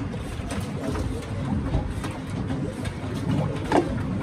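Lassi being poured from a plastic jug into rows of plastic tumblers, with scattered clicks and knocks of plastic and metal containers and one louder knock near the end, over a steady low rumble.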